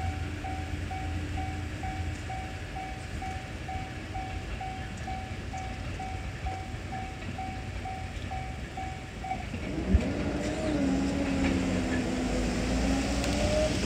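Japanese railroad crossing bell ringing its rapid "kan kan" strokes, about two a second, which stop about nine seconds in as the warning ends. About a second later there is a thump, then a motor hum that rises in pitch and then holds steady.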